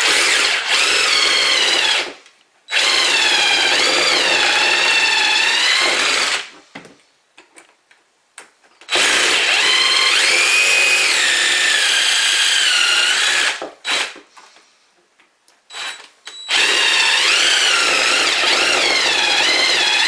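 Power drill with a 5/16-inch bit drilling out stripped screw holes in the edge of a wooden door, ready for dowels. It runs in four spells of a few seconds each, its pitch wavering up and down as the trigger and load change, with short pauses and a few small clicks between.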